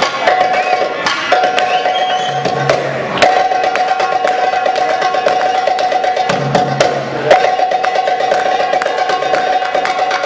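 Arabic goblet drum (darbuka) playing a fast improvised drum solo: rapid rolls broken by sharp accented strikes, with short runs of deep bass strokes twice.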